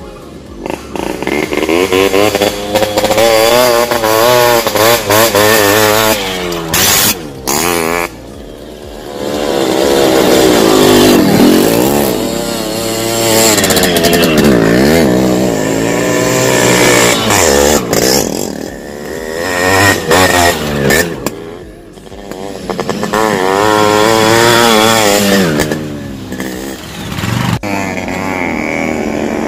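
Yamaha RX two-stroke motorcycles revving hard as they ride past one after another, the engine note climbing and falling several times with brief lulls between bikes.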